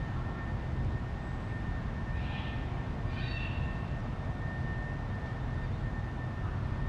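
Steady low outdoor rumble, with a faint steady high tone above it and a short high-pitched call about two to three seconds in.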